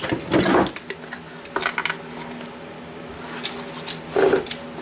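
Brittle old plastic pail cracking and scraping as pieces are pried off hardened concrete with channel-lock pliers, in three short bursts, the first the loudest, over a steady low hum.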